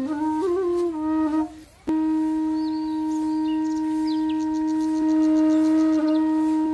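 Background music: a flute-like wind instrument plays a short melody, breaks off briefly about two seconds in, then holds one long steady note.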